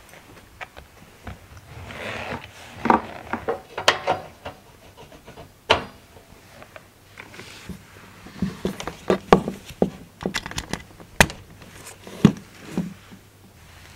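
Hands handling a kotatsu heater's power cord under a wooden table: rubbing and knocks on wood, with several sharp plastic clicks as the plug is pushed into the heater unit and, near the end, into a power strip.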